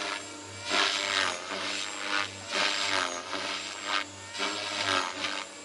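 Electric 3D RC helicopter's rotor and motor flying side tic-tocs: a steady motor hum with a rasping whoosh from the blades that surges about once a second as the helicopter rocks back and forth.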